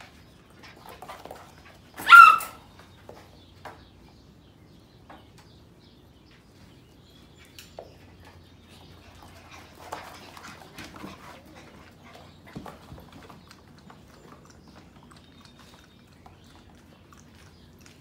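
Sheepadoodle puppies at play: one puppy gives a single short, high-pitched yap about two seconds in, the loudest sound, followed by scattered soft scuffles and knocks from the romping litter.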